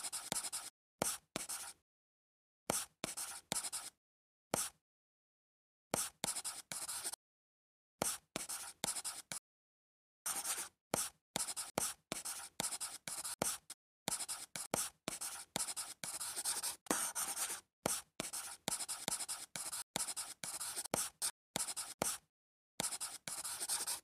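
Scratchy drawing strokes, like a tip rubbing across a surface, come in quick bursts from a fraction of a second up to about two seconds long, with dead silence between them.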